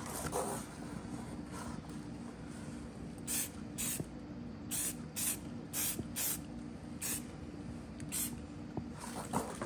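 Aerosol spray paint can sprayed in a string of short hissing bursts, about eight of them, starting about three seconds in and coming roughly half a second to a second apart, over a faint steady low hum.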